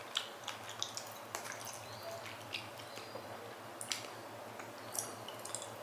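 Irregular soft, wet clicks and smacks of a mouth chewing raw chicken.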